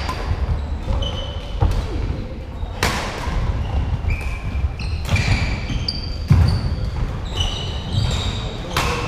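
Badminton rally on a wooden sports-hall floor. Rackets strike the shuttlecock several times, each a sharp crack a second or more apart, while the players' shoes squeak and their footsteps thud on the boards.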